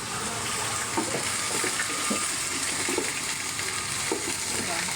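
Onions and vegetables sizzling in hot oil in a frying pan, a steady hiss with crackling, and the knocks and scrapes of a spoon stirring them.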